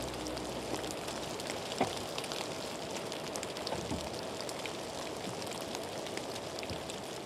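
Steady rain falling, an even hiss with scattered drips ticking, and one louder knock about two seconds in.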